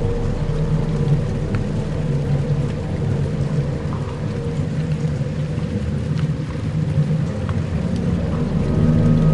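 Dark ambient music: a low sustained drone over rumbling, rain-like noise with a few faint ticks, the low tones swelling near the end.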